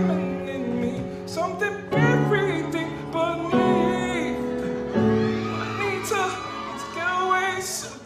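Music track: a song with a singing voice over sustained chords that change every second or two.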